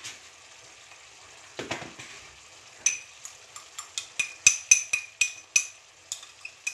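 A spoon clinking again and again against a small glass of saffron steeped in water as it is stirred: quick, bright, ringing clinks, about two or three a second, starting about three seconds in and getting louder. Underneath, the pot of vegetables sizzles faintly.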